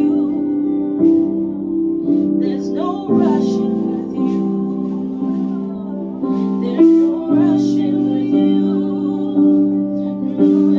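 Live worship music: sustained keyboard chords changing every second or two, with a voice singing softly over them.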